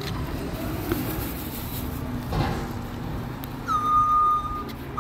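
Garbage truck engine running with a low rumble; about three-quarters in, its backup alarm sounds one loud, steady high-pitched beep lasting about a second as the truck starts to reverse.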